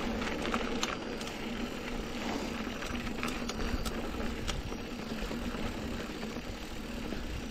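Mountain bike rolling along a dirt track: steady tyre and wind noise with scattered clicks and rattles from the bike.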